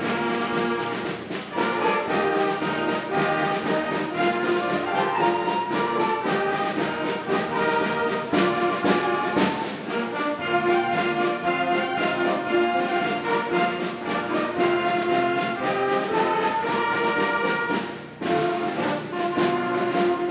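School concert band of clarinets, flutes, trumpets and other brass playing sustained chords together, with a short break about eighteen seconds in before the band comes back in.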